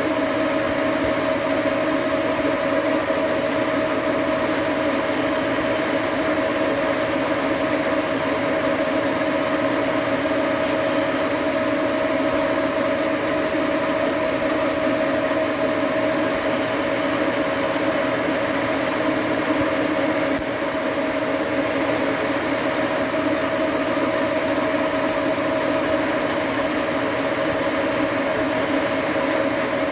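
Engine lathe running steadily with a constant whine as its tool cuts grooves into the ridged profile of a hose barb.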